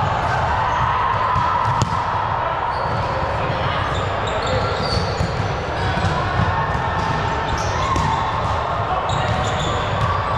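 Gym sounds during a recreational volleyball match: a ball thudding and bouncing, players' indistinct voices, and short high squeaks over a steady hall din.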